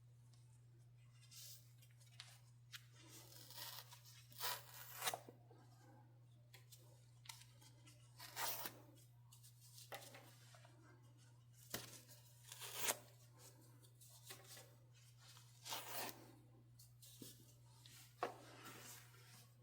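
Product packaging being opened and handled: tearing of seal tape or paper and rustling of cardboard and plastic in irregular short bursts, with small clicks, over a faint steady hum.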